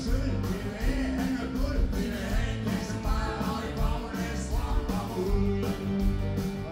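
Live rock and roll band playing: electric guitars and bass over a steady drum-kit beat, with a singer's vocals.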